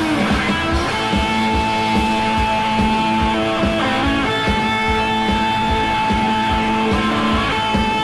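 Instrumental passage of a rock band recording: electric guitar holding long sustained notes over a steady low drone, with bass and a regular drum beat underneath.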